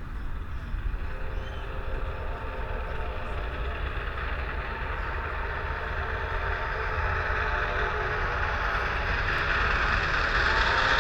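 Steam locomotive running, growing steadily louder: a low rumble with a steady, multi-toned hum above it.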